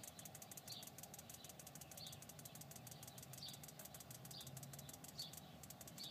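Faint, fast ticking from a four-hole fuel injector being pulsed open and shut as its lead is tapped on and off a battery terminal while cleaning solution is pumped through it, with a brief pause near the end.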